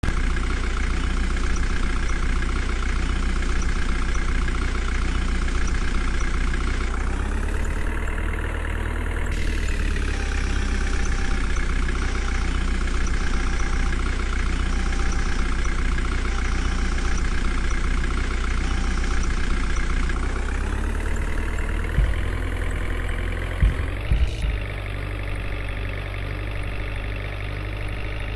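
A heavy vehicle's engine running steadily, its pitch rising briefly about seven seconds in and rising again around twenty seconds in, with a few sharp knocks a little after that.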